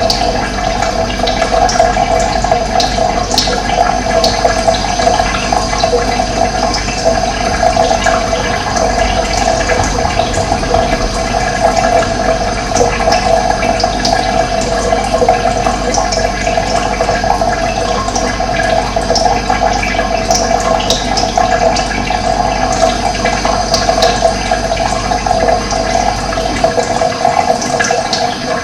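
Steady rushing of running water, with brief high bird chirps scattered over it.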